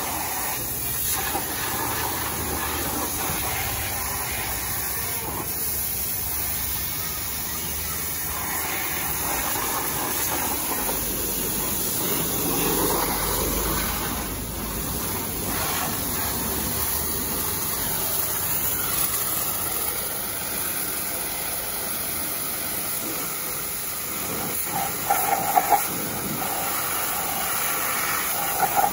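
High-pressure washer jet hissing steadily as it sprays water onto a motorcycle's swingarm and rear wheel, with a few brief louder bursts near the end.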